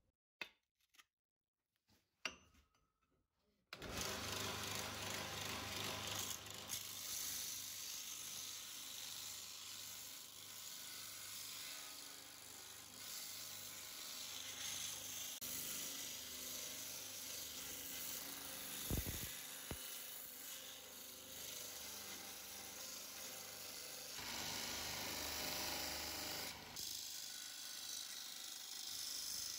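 A steel scribe scratching along the edge of a template onto a steel plate: a continuous rough scratching hiss over a low hum, starting about four seconds in after a few faint clicks. Two dull knocks come in the second half.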